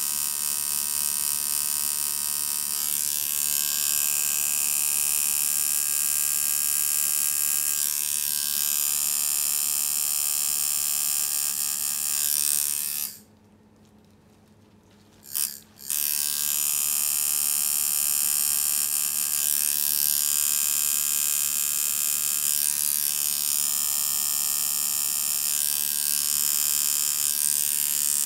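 Coil tattoo machine buzzing steadily as it works ink into skin. About halfway through it stops for a couple of seconds, gives one short burst, then runs again.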